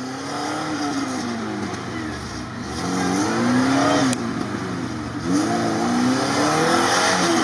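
An off-road 4x4's engine revving up and down several times as it works through deep mud, with a sharp click about four seconds in.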